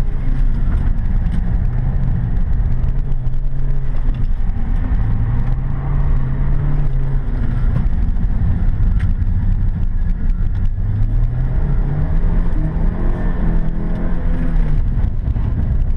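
Toyota Corolla Sportivo's four-cylinder engine heard from inside the cabin under hard driving, its pitch rising and falling again and again as the driver accelerates and backs off between cones, over a heavy low rumble.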